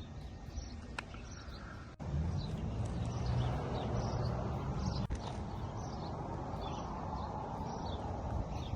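Small birds chirping again and again over a steady low rumble, which jumps louder about two seconds in.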